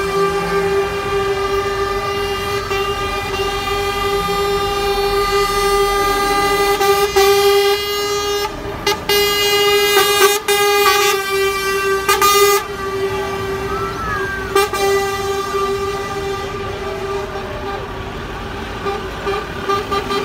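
Lorry air horns held in long steady blasts, several horn tones sounding together. Short bursts of louder hiss come between about eight and twelve seconds in as the lorries pass.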